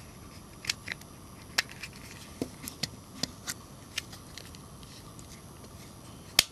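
Sharp plastic clicks and taps of an LG B1300 mobile phone's housing being pressed and fitted together by hand, a dozen or so through the first few seconds, then one louder snap near the end as a part seats.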